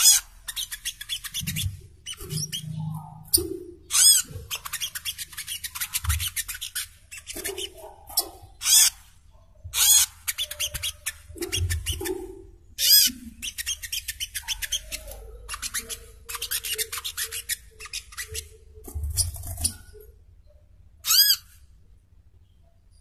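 Sogok ontong (burung kelapa, the brown-throated sunbird) calling in a long run of short bursts: fast, buzzy chattering trills alternating with sharp, high ringing notes. Faint low thumps sit between the bursts, and the calls stop a few seconds before the end.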